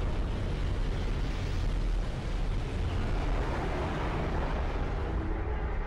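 A deep, steady rumble with a rushing hiss over it: an explosion or energy-blast sound effect from an animated soundtrack.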